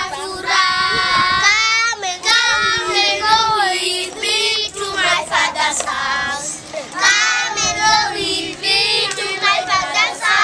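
A group of young children singing a song together in held, sung phrases, their voices bright and loud.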